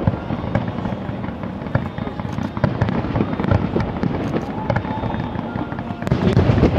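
Fireworks display: a dense, continuous run of shell bursts and crackling bangs, growing louder about six seconds in as a new volley goes off.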